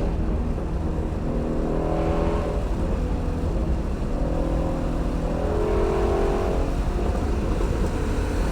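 Shelby GT350R's 5.2-litre flat-plane-crank V8 burbling through its stock exhaust, the engine note rising and falling as the throttle is let off and lightly held in again.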